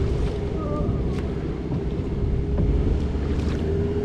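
Small river boat's motor running steadily, with wind buffeting the microphone.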